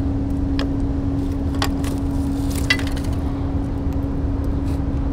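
Steady low background rumble with a constant mechanical hum, and three light clicks about a second apart in the first three seconds.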